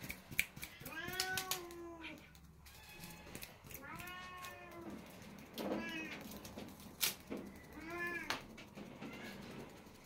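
Golden chinchilla Scottish cat meowing four times, the first two calls drawn out and the later two short, with a few sharp clicks between them, the loudest about seven seconds in.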